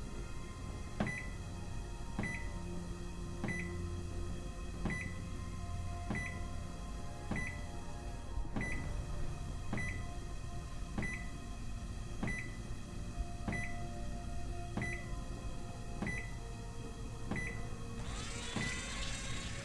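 Sci-fi spacecraft computer ambience: a steady low electronic hum with a short beep about every one and a quarter seconds. Near the end comes a rapid flurry of high electronic chirps and blips.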